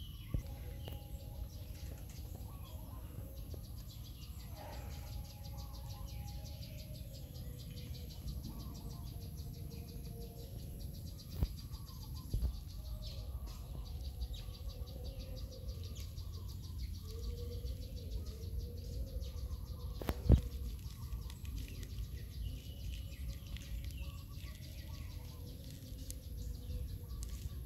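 Outdoor ambience: a steady low rumble with faint bird and insect sounds, broken by three sharp knocks, the loudest about twenty seconds in.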